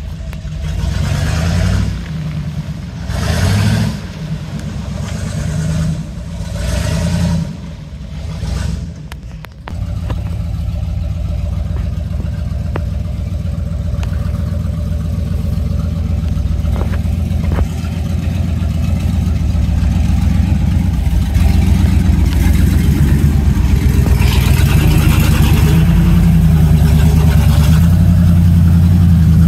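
Chevrolet C/K 1500 pickup's engine revving in bursts off-road, then pulling steadily and growing louder as the truck pushes through a creek, with water splashing around it near the end.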